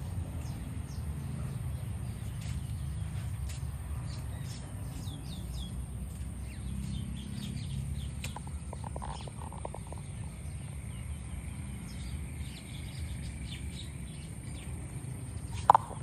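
Birds calling among the trees: many short high chirps throughout, a run of lower calls about eight seconds in, and a short louder call near the end, over a steady low rumble.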